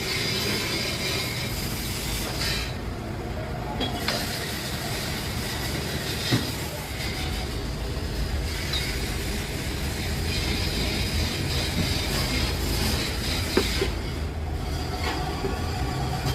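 Steady mechanical rumble with metallic squealing, metal working against metal. The high, hissing part drops away briefly about three seconds in and again near the end, with a few sharp knocks.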